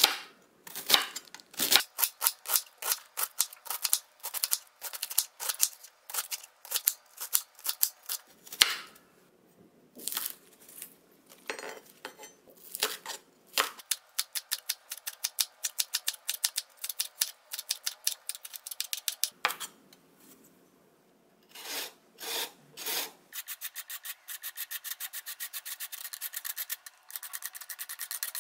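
Chef's knife slicing cabbage and then chopping scallions on a wooden cutting board, a run of crisp chops a few per second with short pauses. Near the end, a carrot rubbed fast across a flat metal grater, a quick steady rasping.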